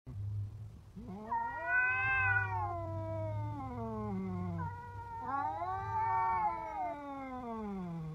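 A cat giving two long, drawn-out meows, each about three and a half seconds, rising and then sliding down in pitch at the end.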